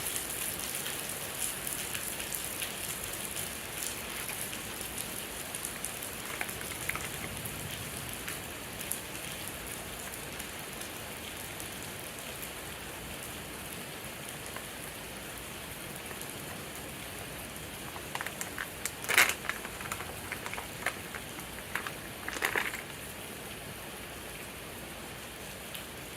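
Steady rain falling during a thunderstorm, heard as an even hiss. A few sharper taps and clicks break through in the last third, the loudest one about three-quarters of the way in.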